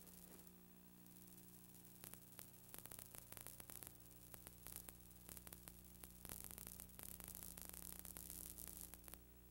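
Near silence: a steady low electrical hum and hiss with scattered crackling clicks, the background noise of an old recording.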